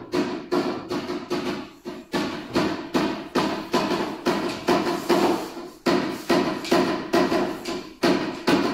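Repeated hammer blows on metal, about three a second, each ringing briefly.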